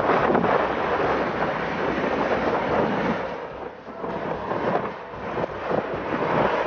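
Wind buffeting the camera's microphone in uneven gusts, a rough rushing noise that eases off briefly about four seconds in and again a second later.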